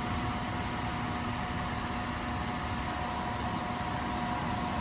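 A 12,000 BTU portable air conditioner's fan blowing steadily, with a steady tone over it; the compressor has not yet kicked on.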